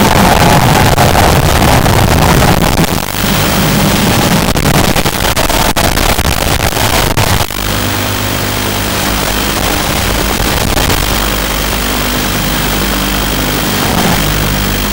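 FPV quadcopter's electric motors and propellers buzzing under changing throttle, with hiss. About halfway through it drops to a quieter, steadier hum.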